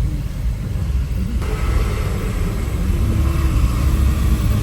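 Car engine and road rumble heard from inside a vehicle moving in traffic. It grows a little louder and fuller about a second and a half in.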